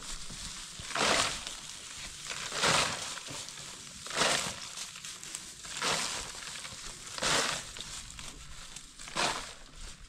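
Dry straw crunching and rustling as handfuls are pushed into a sack, six rough crunches evenly spaced about a second and a half apart.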